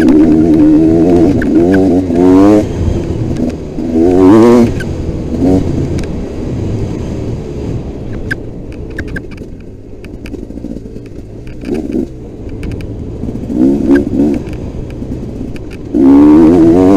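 Motocross dirt bike engine under the rider, opened up hard several times, each time climbing in pitch, with quieter off-throttle stretches between. There are a few sharp ticks in the quieter middle part.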